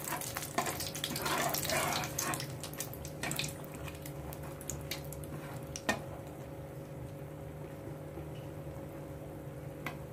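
Dried red chillies sizzling and crackling in hot mustard oil in a wok, busiest in the first few seconds and then dying down to a faint hiss over a steady low hum. A metal spatula taps against the pan twice, about six seconds in and near the end.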